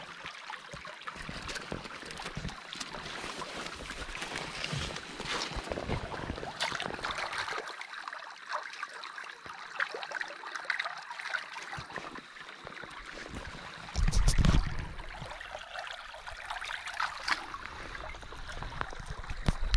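Shallow brook babbling steadily over stones, with small scattered clicks and rustles. A brief, loud low rumble comes about fourteen seconds in.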